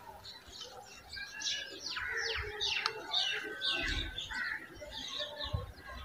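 Small birds chirping and twittering: a busy run of short, high calls, several with quick falling notes, with a brief low thump near the end.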